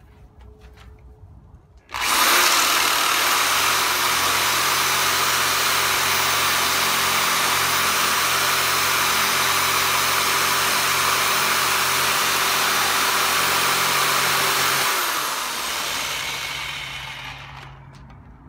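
Corded electric power saw starting abruptly about two seconds in and running steadily as its blade cuts through a weathered wooden board, then slowing with a falling pitch and fading out near the end.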